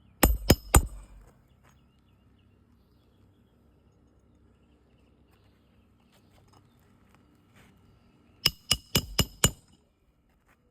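Hammer driving roofing nails into a shingle: three quick ringing metal strikes, then, after a quiet stretch, a run of five more.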